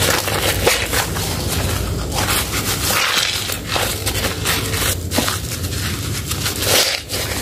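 Soaked Medicare White soap lather and a soapy scouring sponge squeezed and kneaded by gloved hands: wet squelching and crackling foam, in repeated uneven squishes.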